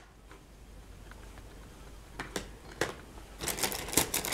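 Crinkled plastic wrapping rustling and a few light clicks as a hand rummages through a box of cosmetics. It is nearly still at first, with sparse clicks from about two seconds in, then busier rustling near the end.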